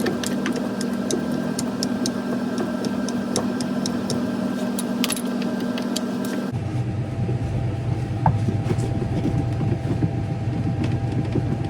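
A small power driver runs steadily with a Torx T30 bit, apparently backing out screws on the underside of a Whirlpool Cabrio washer, with light clicks. It stops about six and a half seconds in, leaving a steady low hum.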